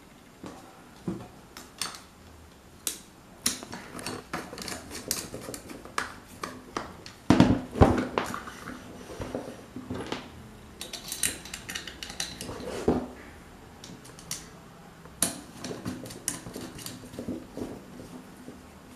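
Scattered clinks and knocks of small metal parts and an electric fan motor's metal housing being handled on a workbench, with a louder cluster of knocks about seven seconds in.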